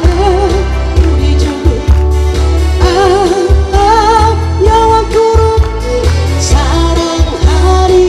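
A woman singing live into a microphone over amplified musical accompaniment with a steady beat; her held notes carry a wide vibrato.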